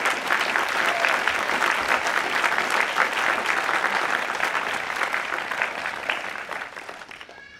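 Audience applauding, a steady patter of many hands clapping that dies away over the last second or two.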